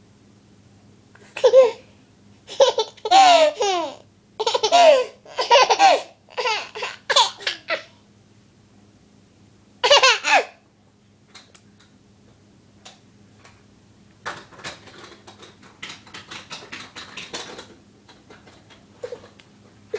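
Baby laughing in a run of loud, gliding laughs for several seconds, with one more laugh about ten seconds in. Faint rustling and taps follow near the end.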